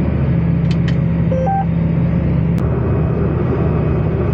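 John Deere tractor's engine running steadily under planting load, heard from inside the cab as a low even drone. About a second and a half in, a short two-note electronic beep, the second note higher.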